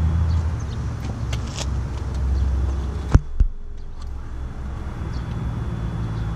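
A steady low mechanical hum, broken by two sharp clicks about a quarter second apart roughly three seconds in.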